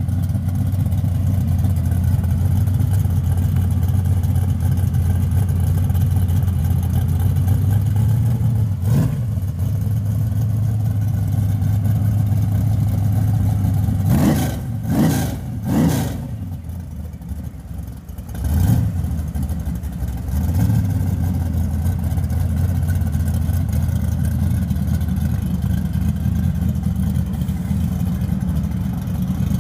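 Fox-body Ford Mustang's engine idling loudly with a steady low rumble, blipped once about nine seconds in, then revved in three quick bursts around the middle and once more shortly after, before settling back to idle.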